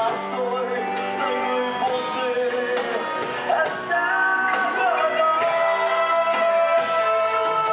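A male singer sings a Vietnamese ballad live with a band of keyboard, electric guitars, bass and drums, holding one long note near the end.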